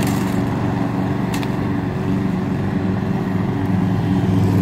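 Lawn mower running steadily while being pushed across the grass, with a couple of light ticks near the start.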